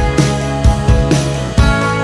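Background music: upbeat guitar-led track with a steady beat.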